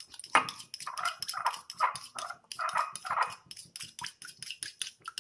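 Metal spoon stirring thick tomato-and-honey sauce in a glass bowl, clinking and scraping against the glass about five times a second. A dog yips about six times over the first three and a half seconds.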